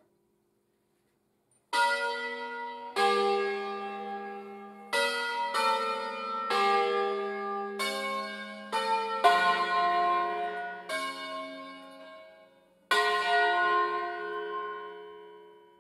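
A ring of five church bells in F3 sharp, cast by Angelo Ottolina of Bergamo in 1957, ringing in the Bergamo concerto style and playing a melody. About ten strokes on different bells begin nearly two seconds in, at uneven spacing, each left to ring out; the last one fades away near the end.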